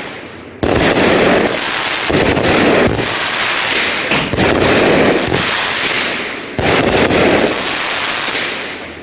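Aerial fireworks bursting overhead, each burst a loud, dense crackle of many small pops that dies away. Fresh bursts break in suddenly about half a second in, a little after four seconds, and near six and a half seconds.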